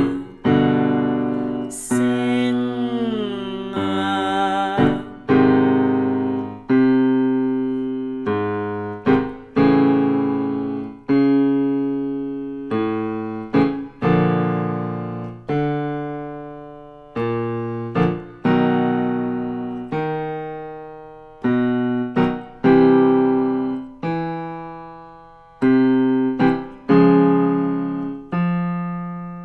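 Piano playing warm-up accompaniment: chords struck one after another, each left to ring and fade over a second or two, with short quick chords between them as the exercise pattern moves from key to key.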